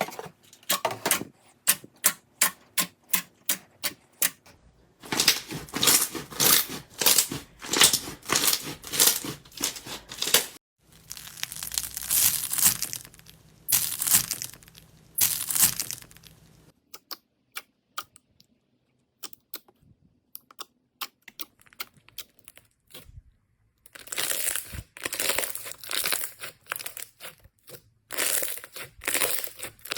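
Slime being pressed, squeezed and stretched by hand, making rapid crackling pops and clicks that come in bursts, with a quieter patch of sparse clicks in the middle.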